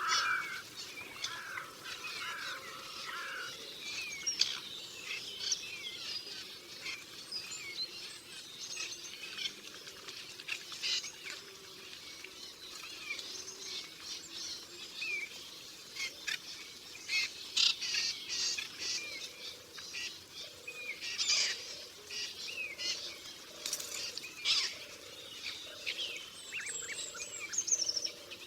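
Forest ambience with several birds chirping and trilling over a soft background hiss.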